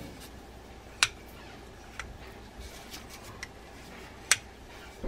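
Sharp clicks and taps from handling the just-removed rotor assembly of a Daiwa BG90 spinning reel, with two louder clicks about a second in and near the end, and a few fainter ticks between.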